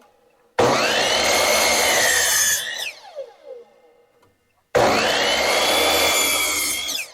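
Chainsaw cutting into log sections in two bursts of about two seconds each. Its pitch sags under load during each cut and falls away as the cut ends.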